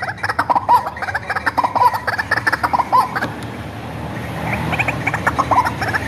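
White-breasted waterhen calling: a rapid run of repeated, slightly dipping notes, several a second. The calls ease off for about a second a little past halfway, then pick up again.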